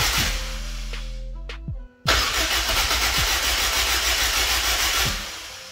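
Freshly swapped Honda F20B four-cylinder being cranked over on its starter on a first start attempt, in two long spells with a sudden short break just under two seconds in, fading near the end.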